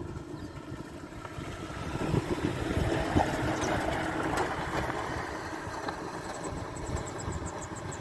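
A vehicle engine running at low revs, with a rough, irregular rumble. Near the end comes a rapid run of high, faint ticks, about ten a second.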